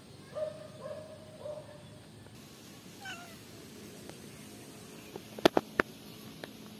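Tabby cat meowing: a run of short, evenly spaced meows in the first second and a half, then one call falling in pitch about three seconds in. A quick cluster of sharp clicks about five and a half seconds in is the loudest sound.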